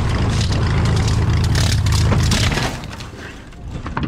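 Cessna 210's six-cylinder piston engine running at high power, then falling away about two-thirds of the way in as the throttle is pulled, over crunching and crackling as the plane ploughs through soft dirt and sagebrush on an aborted takeoff. A few sharp knocks near the end.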